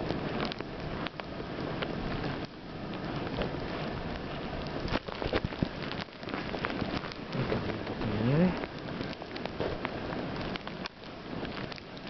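Footsteps crunching through deep snow, a dense crackling rush with frequent clicks. About eight seconds in, a short rising tone is heard.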